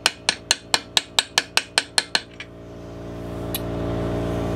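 A hammer tapping a steel seal driver quickly and lightly, about five strikes a second, to drive a crankshaft seal into a Husqvarna 365 Special chainsaw crankcase. The tapping stops a little over two seconds in, and a steady hum then rises and holds.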